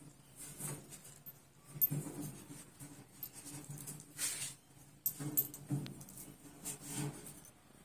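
A hand tool scraping and clicking against the steel frame of a combine harvester, in scattered short strokes with a few louder scrapes.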